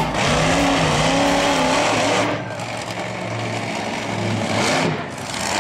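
Monster truck engine revving up and down as the truck drives, its pitch rising and falling several times; a little quieter from about two seconds in.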